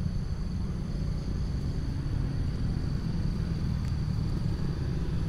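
A steady low rumble, with insects trilling steadily high above it.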